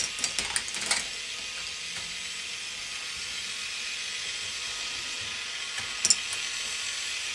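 K'nex ball machine running: a steady hiss with clusters of small plastic clicks and clatters from balls on the track, several in the first second and a louder group about six seconds in.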